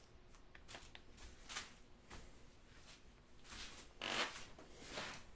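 Faint rustling and crinkling made of several short scrapes, with one louder rustle about four seconds in.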